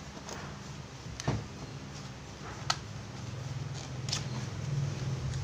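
A plastic tool case and a cordless impact driver being handled: a few light clicks and knocks spread out over the seconds, over a steady low hum that grows a little louder in the second half.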